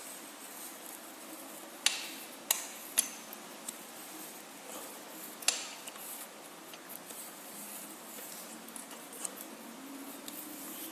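A handful of sharp metal clinks from an adjustable wrench working on the bike's pedal as it is tightened: three close together about two seconds in, another about halfway, with fainter ticks between.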